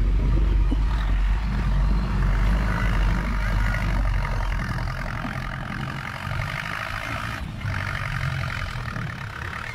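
Diesel farm tractor engine running under load, a steady low rumble that eases off somewhat over the second half.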